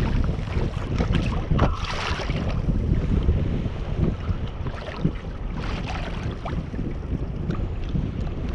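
Wind buffeting the microphone over water lapping against a fishing kayak's hull on a choppy sea, steady throughout, with a few brief louder rushes of noise.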